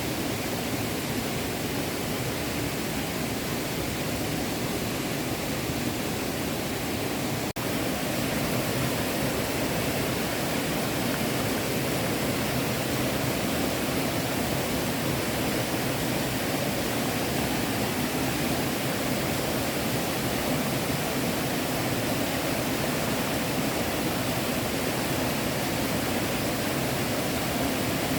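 Small stream flowing steadily over rocks, an even rushing of water, with a momentary break about seven and a half seconds in.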